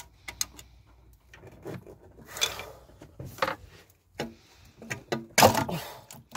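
Thermostat housing and coolant pipe on a Rover K-series engine being wiggled and levered loose: scattered clicks, knocks and short scrapes of parts and hoses, with the loudest scrape about five seconds in.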